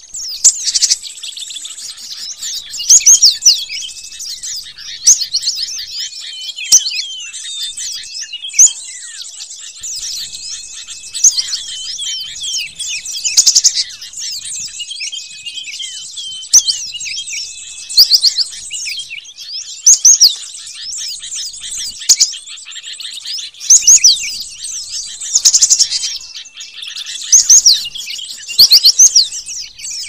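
Cinereous tits (gelatik batu) calling and chirping over each other as a bird-lure recording, with loud clusters of quick, high chirps every two seconds or so over a steady background of softer chirps.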